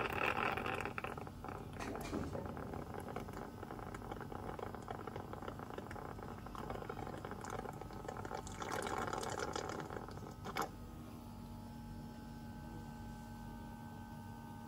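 Stingless bee (kelulut) honey being sucked out of opened honey pots through a plastic suction tube: a crackling, gurgling slurp of honey and air. It swells again about nine seconds in and stops at about eleven seconds, with a steady faint hum underneath.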